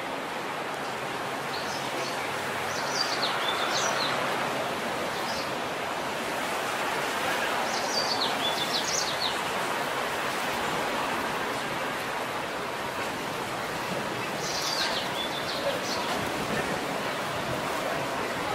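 Steady outdoor street hum with small birds chirping in three short runs of quick high notes.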